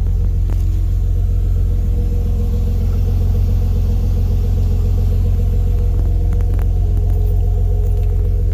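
2010 Nissan Maxima's VQ35 V6 idling steadily through a newly fitted Torxe cat-back dual exhaust and Y-pipe with catalytic converter, a low, even exhaust note with no revving.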